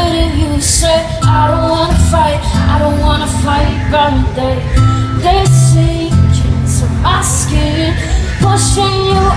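Live amplified acoustic rock performance: a woman singing into a microphone over acoustic guitar, heard through the concert PA.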